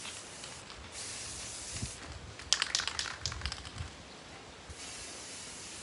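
Aerosol spray-paint can hissing in short bursts as a bicycle is spray-painted, with a run of sharp clicks in the middle.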